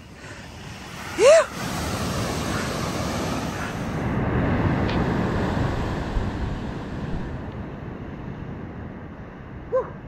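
Surf breaking and washing up the beach, with wind on the microphone. About a second in comes one short, loud cry rising and falling in pitch, and a fainter one near the end.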